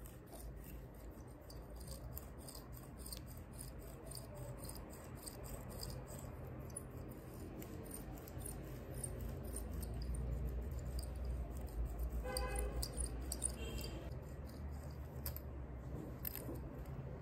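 Jade facial roller worked over the face and jaw: faint, irregular small clicks and light rattling from the roller's metal frame and handle, over a low rumble.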